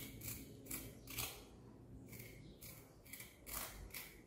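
Small knife scraping the papery brown skin off an avocado pit: a quick, uneven series of faint, short, scratchy scrapes, about two a second.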